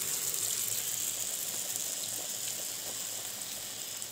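Hot cooking oil sizzling steadily in a deep pot, easing slightly toward the end.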